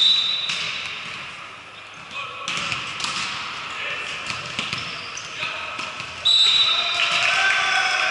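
A referee's whistle blows two short steady blasts, one right at the start and one about six seconds in. Between them come players' shouts and voices in the gym, with a few knocks of the ball.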